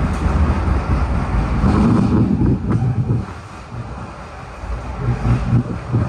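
PATCO Speedline rapid-transit car running through a subway tunnel, heard from inside the front of the car: a steady low rumble of wheels on rail. The rumble drops in level about three seconds in.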